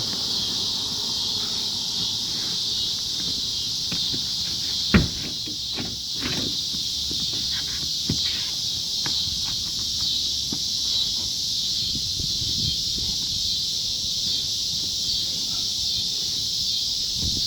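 Steady, high-pitched chorus of insects, with scattered knocks and rustles over it. The loudest is a single sharp knock about five seconds in.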